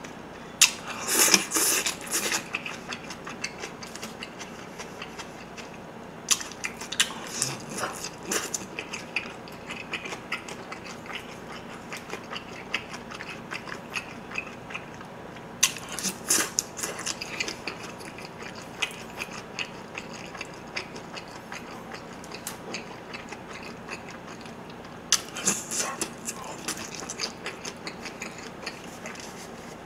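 Close-miked eating of spicy cold noodles with young radish kimchi stalks and dumplings: wet chewing, biting and crunching. It comes in clusters of crackly mouth sounds a second or two long near the start, about a quarter of the way in, around the middle and near the end, with softer chewing between.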